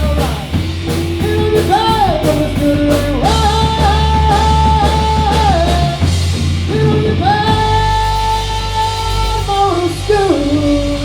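Rock band playing loud in rehearsal: electric guitar, bass and drums with a singing voice, long held notes that bend and glide in pitch.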